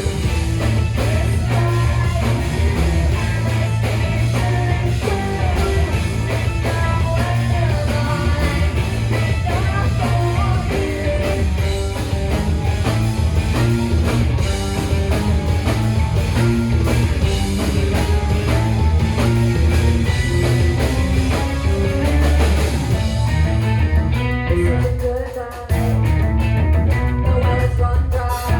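A live rock band playing with electric guitar, bass and drums. About 25 seconds in, the bass and drums drop out for a moment, then the full band comes back in.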